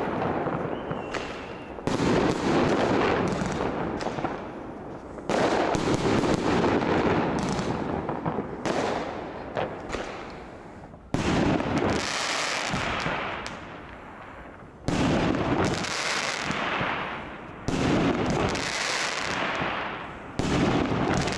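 Aerial fireworks bursting overhead: about six sharp bangs a few seconds apart. Each bang is followed by a rumble that dies away, with scattered crackling in between.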